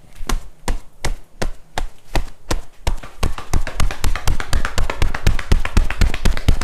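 Percussive hand massage: the barber's hands strike the client in rhythmic slaps or chops, about three a second, then quicken about three seconds in to a fast run of about six or seven strikes a second.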